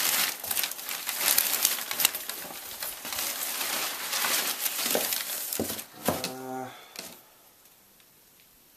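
Crumpled newspaper and packing peanuts rustling and crinkling as hands dig through a packed shipping box, with a brief vocal sound near the end; the rustling stops about seven seconds in.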